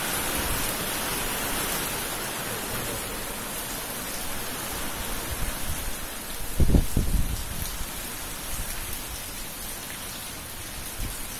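Heavy rain drumming on a bus-stop canopy and the wet street, a steady hiss that slowly eases off. A brief low rumble about seven seconds in.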